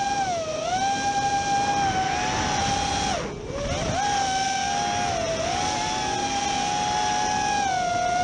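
FPV racing quadcopter's brushless motors and propellers whining steadily, heard from the quad's own onboard camera, the pitch wavering with throttle. About three seconds in, the motors briefly slow: the whine drops sharply in pitch and level, then climbs back.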